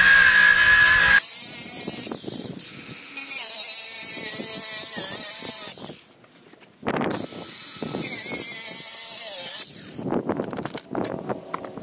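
Handheld power tool running under load in two long runs, with a brief stop about six seconds in; irregular knocks follow near the end.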